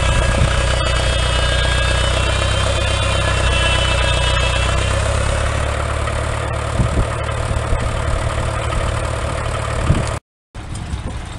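Vintage Fordson tractor engine running steadily, driving a circular saw bench by a long flat belt. A high whine from the belt-driven saw fades after about five seconds, and a few knocks follow. The sound cuts off shortly before the end.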